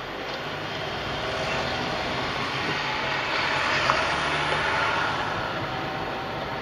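A car driving on a city street, heard from inside the cabin: steady engine and tyre noise, with a single sharp knock about four seconds in.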